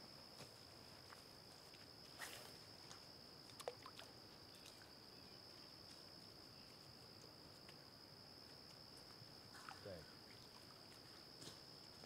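Near silence: a faint, steady high-pitched drone throughout, with a few soft clicks and rustles.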